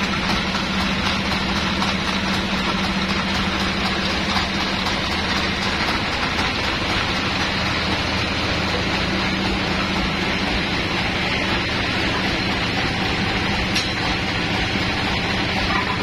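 Band sawmill's machinery running steadily while the log is set on the carriage, not cutting: a constant hum with a couple of light knocks.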